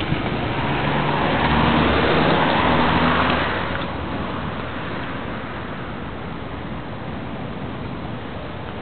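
A car passing on a wet road: its tyre hiss swells and fades over about three seconds, with a low engine hum under it, against steady rain.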